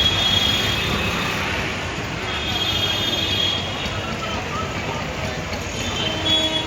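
Steady rumble of passing vehicles, with high, thin squealing tones at times.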